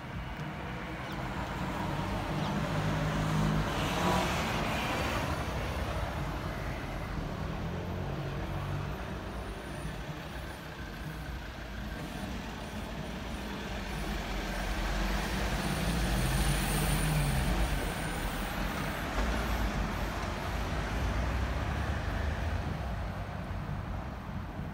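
Street traffic: road vehicles passing, the sound swelling and fading twice, the second time with a heavier vehicle's deep rumble.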